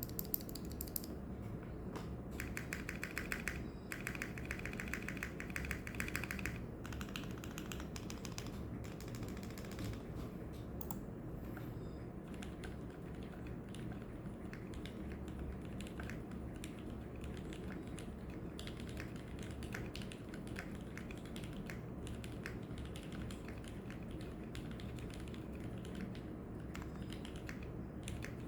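Typing on a Stello 65 mechanical keyboard with vintage black switches on an aluminium plate: a steady run of keystroke clicks, with two quicker, denser flurries of keypresses a couple of seconds in.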